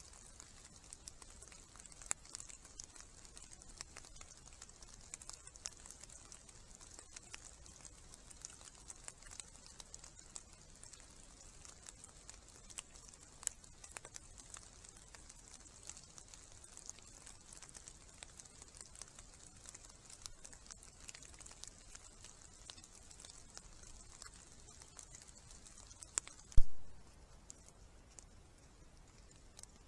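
A wild boar moving and rooting in leaf litter, heard through a trail camera's microphone as faint scattered crackles and ticks over a steady high hiss. A single loud knock comes about 26 seconds in, and the hiss stops after it.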